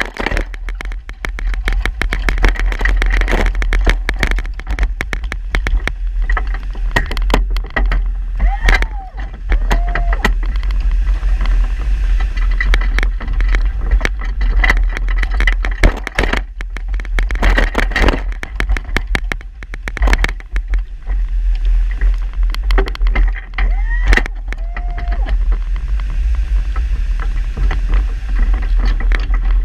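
The engine of a small plow vehicle runs while its blade pushes snow, with constant rattling and clanking from the plow frame and tyre chains and wind buffeting the microphone. Twice there is a short squeal that rises and falls.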